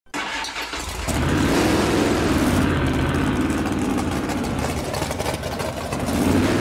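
A car engine starting and revving. It picks up about a second in and swells in pitch twice, once early and again near the end.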